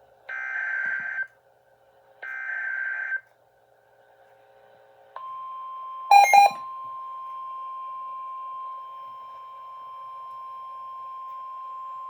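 Emergency Alert System (SAME) data header: three burst of warbling data tones of about a second each, a second apart. About five seconds in, the steady NOAA Weather Radio warning alarm tone begins and holds, marking a warning about to be read. A brief loud chirp sounds about a second after the alarm tone starts.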